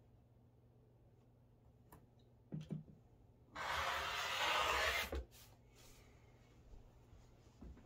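Handling noise from trimming a quilt on a cutting mat: a couple of light knocks, then about a second and a half of rustling rubbing, the loudest sound, and a few faint ticks near the end.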